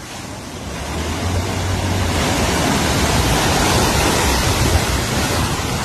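Loud, steady rush of flowing water after heavy rain, swelling up over the first second or so.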